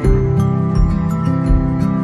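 Background music: calm, new-age-style instrumental with sustained chords over a steady beat.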